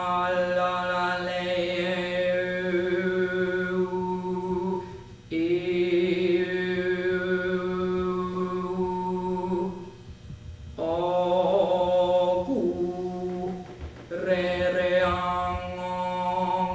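A woman overtone singing: a steady low drone with a bright whistling overtone melody that steps and glides above it. Four long held notes, broken by short pauses for breath.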